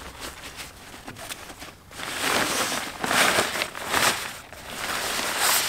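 A new headsail's stiff, crisp sailcloth and its fabric sail bag rustling and crinkling as the bag is pulled open and the sail handled, in loud rustling bursts from about two seconds in.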